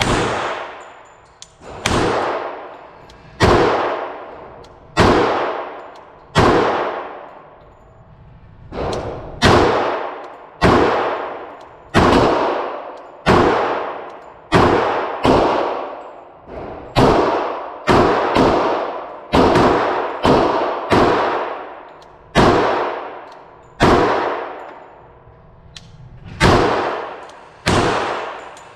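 A Glock .45 ACP pistol fired as a steady string of single shots, roughly one a second and a little faster in the middle, each report ringing out and fading before the next.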